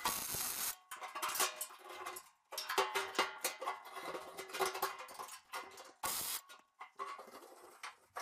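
MIG welder tack-welding steel tube: a short burst of arc crackle at the start and another about six seconds in. Between them come irregular metal clinks and ringing tones.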